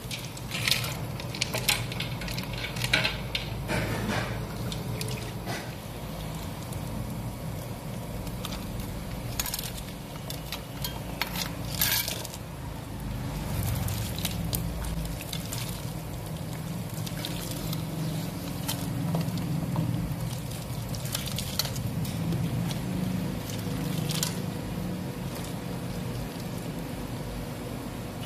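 Ingredients tipped from a bowl into a big steel pot of liquid, splashing and sloshing, while a metal ladle knocks against the pot and bowl now and then. A steady low hum runs underneath.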